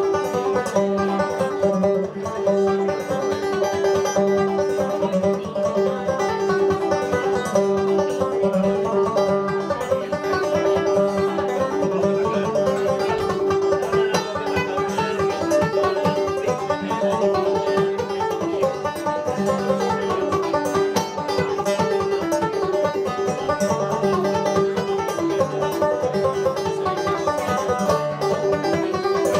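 Unaccompanied clawhammer banjo playing a Scottish tune: a quick, unbroken run of plucked notes over one steady ringing note that carries on throughout.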